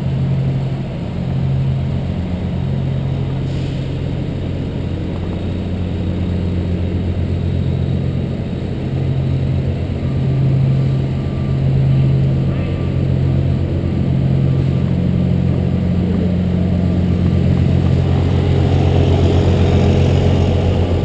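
Truck engine running steadily at low speed, a continuous low drone with little change in pitch.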